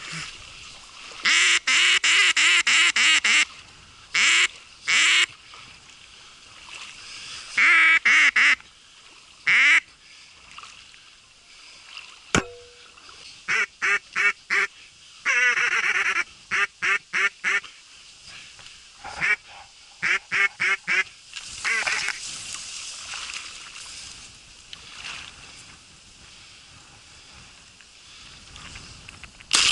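Duck call blown in quacking sequences: several runs of short, rapid quacks and a few longer single quacks. One sharp click comes about halfway through.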